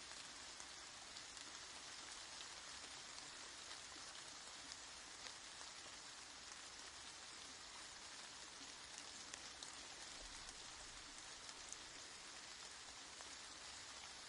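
Soft, steady rain falling: an even hiss flecked with the small ticks of individual drops.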